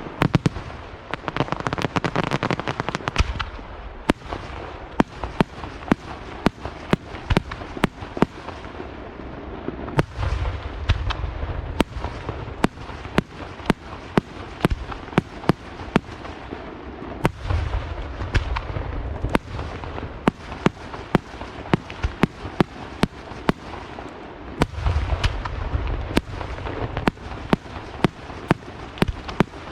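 Aerial fireworks display: a rapid, continuous run of sharp shell bursts, roughly one to two a second, with several denser volleys of crackling and deep booms at the start, about ten seconds in, near the middle, and again near the end.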